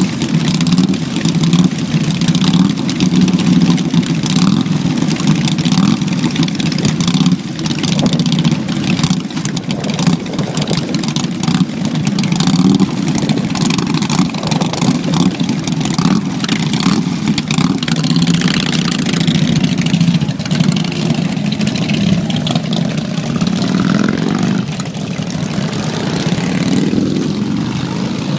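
Several V-twin cruiser motorcycles running together, idling and revving as riders pull away; one engine revs up near the end.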